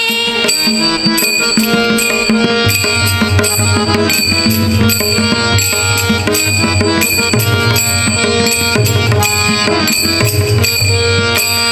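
Instrumental interlude in a devotional bhajan: a melody instrument holds sustained notes over a steady beat of hand drums, with no singing.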